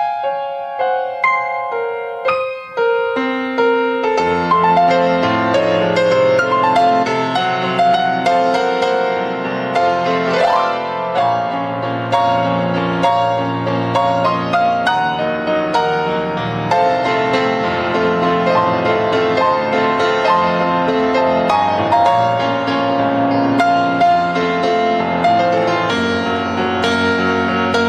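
Solo piano music: a slow melody of single notes, joined about four seconds in by a fuller accompaniment with low bass notes.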